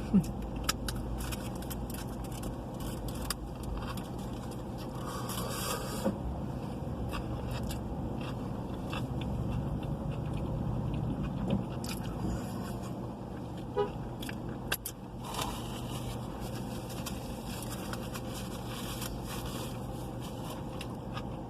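Steady low hum inside a car, with scattered light clicks and rustles from the burrito and its wrapper being handled while eating.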